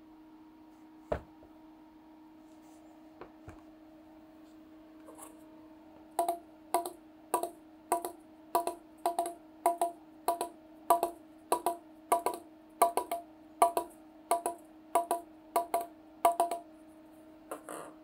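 A table tennis ball bounced over and over on a paddle's rubber face: about twenty evenly spaced clicks, nearly two a second, starting about six seconds in. A single knock comes about a second in, and a steady low hum runs underneath.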